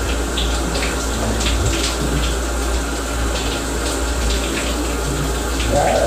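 Overhead shower running steadily, water falling and splashing onto a person in a small tiled shower stall.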